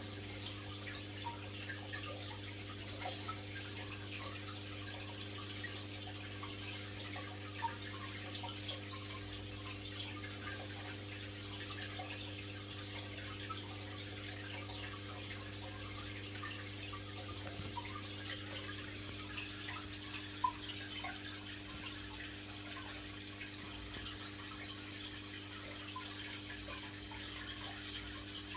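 Aquarium water trickling and bubbling with small drips, over a steady low hum.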